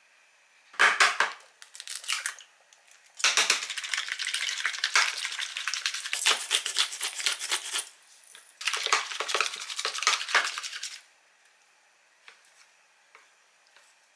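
Hand-twisted pepper grinder grinding black pepper: a couple of short bursts of fine crackling, then two long runs of it with a brief pause between, stopping about eleven seconds in.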